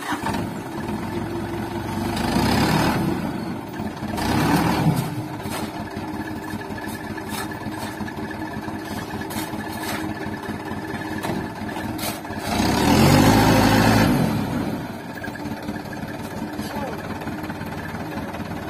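Mitsubishi Canter dump truck's diesel engine running and revved up three times: briefly about two and four seconds in, then longest and loudest about two-thirds of the way through, as the truck, stuck with its rear wheels sunk in sand, tries to pull out.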